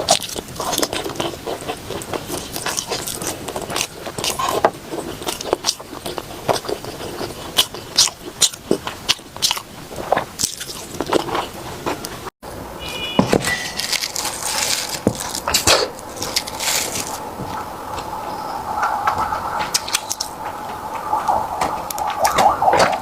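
Close-miked eating: repeated bites and chewing with many sharp mouth clicks, cut by a brief dropout about halfway through, then denser continuous chewing sounds.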